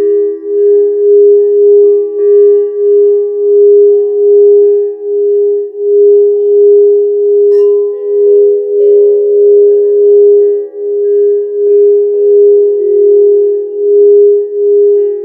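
Crystal singing bowl being played, a loud sustained tone that swells and fades in a steady pulse. A light strike rings out about halfway through, and a second, higher tone joins soon after.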